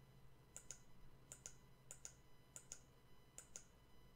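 Faint computer mouse clicks, five in all, each a quick double tick of the button going down and coming back up, spaced about two-thirds of a second apart.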